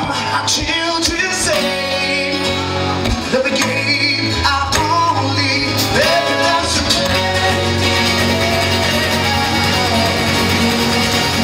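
Live acoustic band music: a man singing into a microphone over strummed acoustic guitars.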